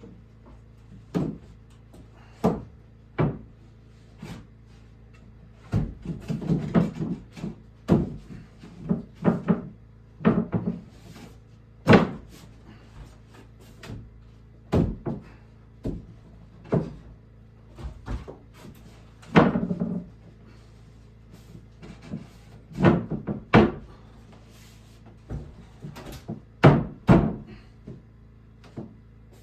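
Irregular wooden knocks and thuds of boards being handled and fitted, some with a short scrape between them.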